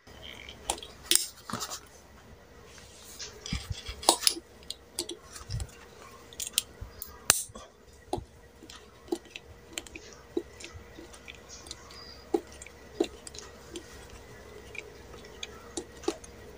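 Screwdriver undoing the housing screws of a small exhaust fan motor: irregular sharp metallic clicks and scrapes of the tool and screws against the metal casing.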